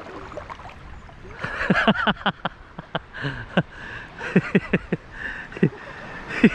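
Shallow seawater sloshing and splashing around someone wading, in a quick irregular run of short splashes that starts about a second and a half in and keeps on.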